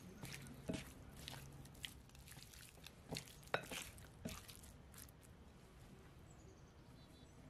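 Raw chicken breast cubes being tossed with spices in a ceramic bowl with a spatula: soft, wet squishing with small clicks of the utensil against the bowl, stopping about five seconds in.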